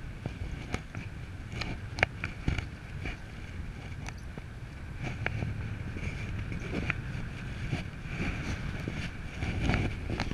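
Wind buffeting the camera microphone during paraglider flight: a steady low rumble of rushing air, broken by scattered sharp clicks and taps.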